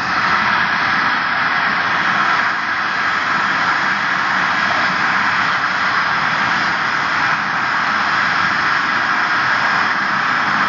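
Large audience of schoolchildren cheering and clapping, a loud, steady wash of voices and hands that starts suddenly as the dance music ends.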